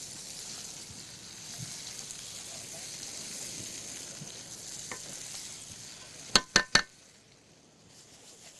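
Egyptian sausage and vegetables sizzling in a frying pan while being stirred with a silicone spatula. About six and a half seconds in come three quick, sharp taps, and then the sizzle fades away.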